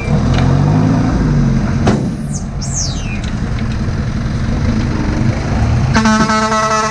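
Dump truck engine running with a steady rumble, its pitch rising and falling briefly near the start, and a short falling high squeal about two and a half seconds in. About six seconds in, a truck horn sounds as one long steady tone.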